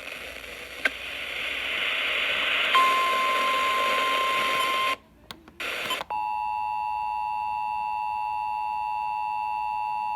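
Emergency Alert System broadcast audio: a hiss of static with a steady single beep tone joining about three seconds in, a brief dropout near five seconds, then the EAS two-tone attention signal, a steady harsh dual-pitched tone, starting about six seconds in.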